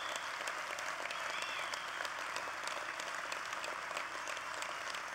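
A large hall audience applauding steadily, many hands clapping at once.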